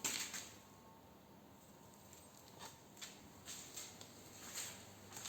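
Faint clicks and a soft knock as metal parts or tools are handled on a workbench, a few scattered taps with quiet room tone between them.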